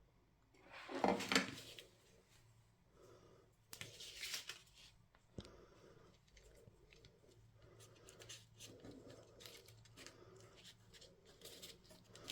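Quiet, brief rustling and scraping of lace trim and card being handled and pressed together, twice, with one sharp click about five seconds in.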